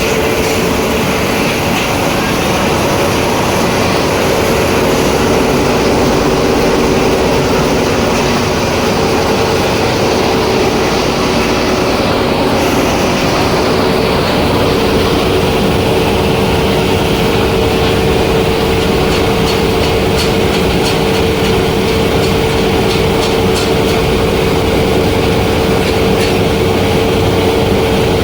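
Scrap copper wire granulator running: a loud, steady machine drone with a constant hum from its motor. Faint light ticking comes in during the second half.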